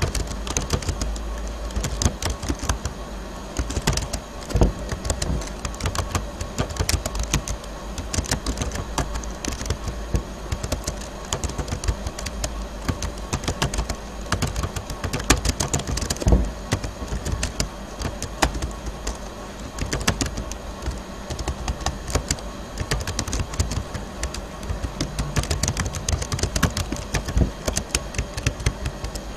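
Computer keyboard being typed on: a quick, irregular run of key clicks, with a low steady hum underneath.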